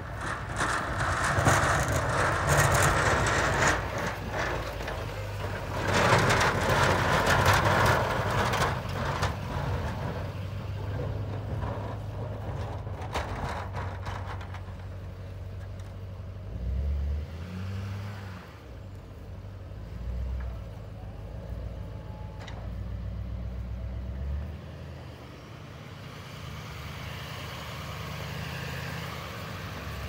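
Pickup plow truck's engine running as it plows a snowy lot, its low rumble rising and falling as it moves. There are two loud stretches of rushing, crunching noise in the first nine seconds.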